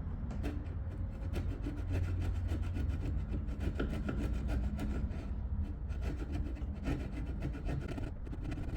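Quick repeated scratching and rubbing strokes against wood, over a low steady hum.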